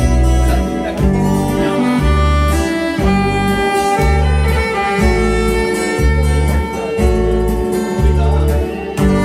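Alto saxophone playing a trot melody with acoustic guitar over a backing track, whose heavy bass pulses come about once a second.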